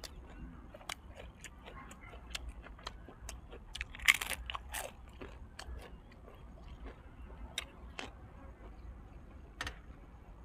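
Close-up chewing and crunching of fried dried squid, with many short wet mouth clicks and smacks and a louder crunch about four seconds in.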